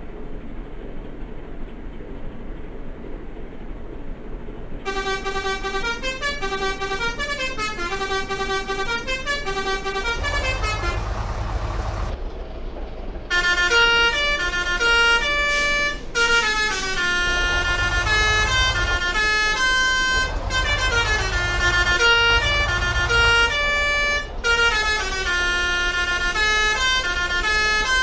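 Telolet multi-tone bus horn playing stepping melodies of several pitched notes, starting about five seconds in. It breaks off briefly near the middle and comes back louder, with low rumbles underneath at times.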